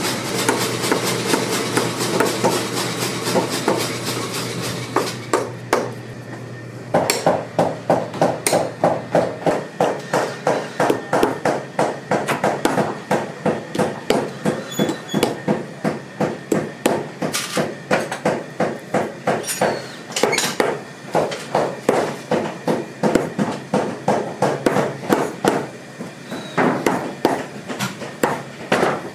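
Hammer driving nails into a new rubber heel on a boot held on a last, in a steady run of sharp blows about two to three a second. A denser clatter of knocks comes first, and the blows pause briefly twice.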